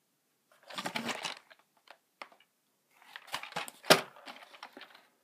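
Handling of the cardboard box of a Plarail toy train: rustling and scraping in two short stretches, with a few light clicks between them and a sharp knock a little before the end.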